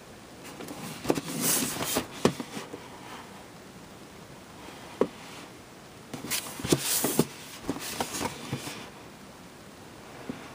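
A cardboard model-kit box being handled and turned over in the hands: rustling and scraping with sharp clicks and taps. The sound comes in two bursts, one starting about half a second in and another about six seconds in, with a single sharp tap in between.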